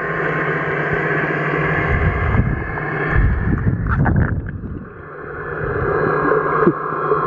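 A steady engine drone heard underwater, with water rushing around the microphone as the camera swings about three to four seconds in.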